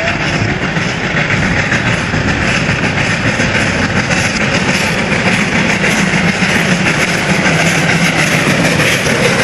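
Victorian Railways J class 2-8-0 steam locomotive J549 running with its train, a steady mix of exhaust and running-gear noise that grows slightly louder as it approaches.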